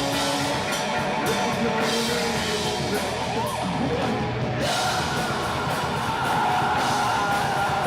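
Heavy metal band playing live: distorted electric guitars and drum kit with crashing cymbals, with yelled vocals over the top.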